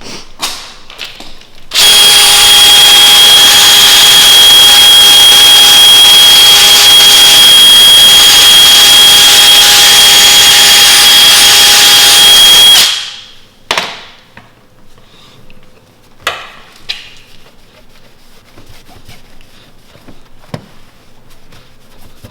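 Electric paint polisher buffing the car's panel, running at a steady speed with a high whine for about eleven seconds, starting about two seconds in and cutting off; a few light clicks and knocks follow.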